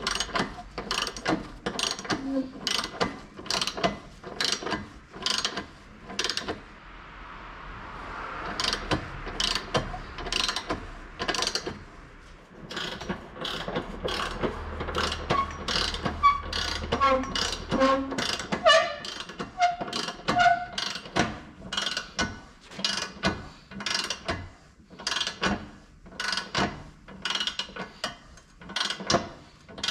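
Ratchet wrench clicking repeatedly, about two clicks a second, with a short pause part way through, as bolts are turned.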